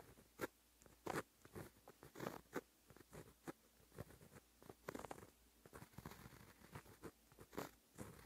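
A fine-tipped white-ink pen scratching across paper in short, irregular strokes, several a second, as Japanese characters are written by hand.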